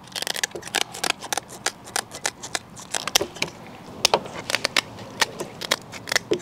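Shears snipping the fins off a carp: an irregular run of sharp, crisp snips as the blades cut through the fins.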